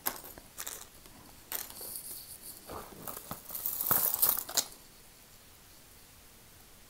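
Metal and beaded costume jewelry clinking and shuffling against a plastic bag as hands rummage through the pile: a run of small clicks and crinkling rustles that stops about four and a half seconds in.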